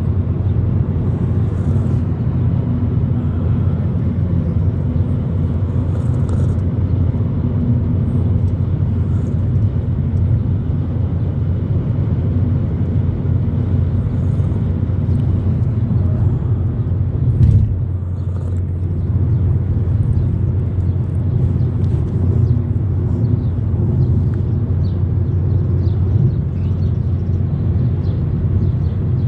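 Steady low rumble of a car driving along a highway, heard from inside the cabin: road and engine noise at an even level. A single short thud a little past halfway.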